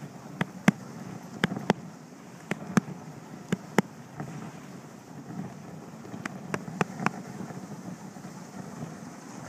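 Dog sled running over a snowy trail behind its team: a steady rush of the sled moving over snow, with wind. Sharp clicks come mostly in quick pairs, about one pair a second at first and then a cluster near the end.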